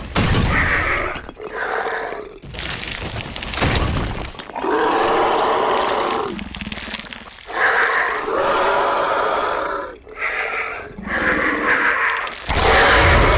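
A string of loud growls and roars with crashing, breaking sounds between them, about eight separate bursts; they sound like horror sound effects.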